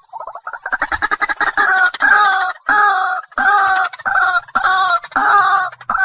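White-breasted waterhen calling: a quick run of stuttering notes that breaks into repeated 'ruak ruak' calls, about one and a half a second.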